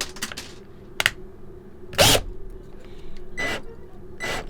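An Allen key working the small screws in the base of an SLA resin printer: a few separate sharp metal clicks and scrapes, the loudest about two seconds in, as the key slips in a screw head that is stripping.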